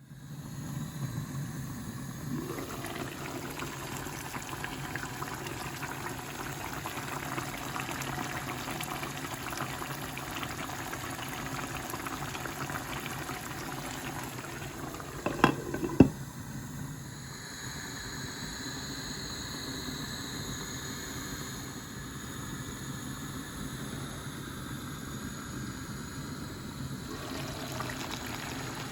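Chicken curry sauce bubbling and simmering in a pan as it reduces on low heat, a steady liquid bubbling. Two sharp knocks just past the middle, like a utensil against the pan.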